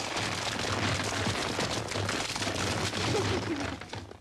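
Green slime pouring down onto a girl's head and splattering, a dense crackling splash that holds steady and dies away near the end.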